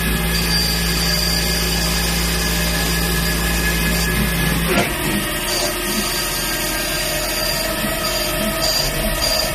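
CNC machine running, a steady mechanical hum with several constant high tones; a little under halfway through the low hum drops away with a brief falling whine and the machine runs on.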